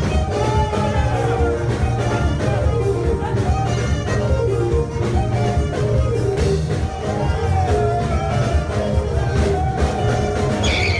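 Background music with a steady, heavy bass and a melody line; a high held tone comes in near the end.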